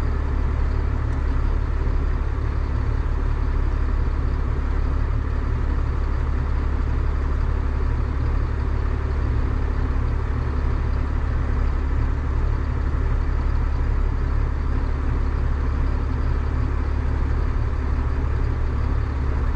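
Big John Deere farm tractor's diesel engine running at a steady speed, a constant low drone that does not rise or fall.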